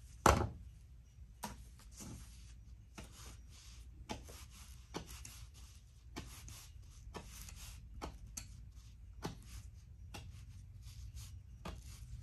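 Wharncliffe-bladed D2 steel folding knife push-cutting paracord: one loud sharp cut just after the start, then a string of quieter slicing clicks and scrapes at irregular intervals, roughly one a second.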